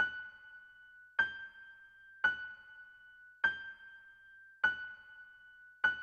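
Background music: a single bell-like keyboard note struck six times, about once every 1.2 seconds, each strike ringing out before the next.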